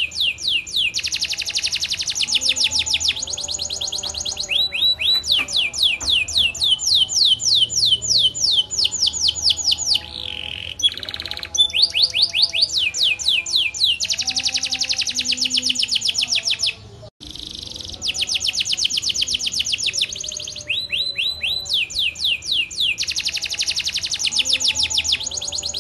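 Canary singing a long, continuous song of rapid trills: runs of fast repeated downslurred notes that change speed from phrase to phrase, with a short harsh buzzy passage partway through and a momentary break about seventeen seconds in.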